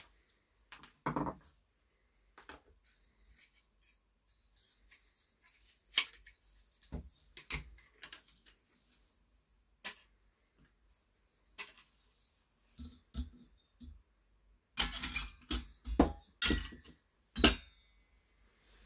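Irregular clicks, clinks and knocks of hand tools, small computer fans and aluminium heatsinks being handled and set down on a wooden workbench, with a quick run of louder knocks near the end.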